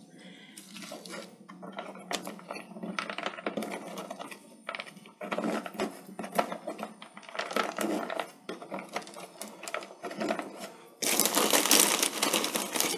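Pieces of pine bark clicking and rattling against each other and the plastic Aircone pot as fingers press them into the gaps around the orchid's root ball, in many small, irregular clicks. About eleven seconds in, a louder rustle of a plastic bag as a hand reaches into the bag of bark.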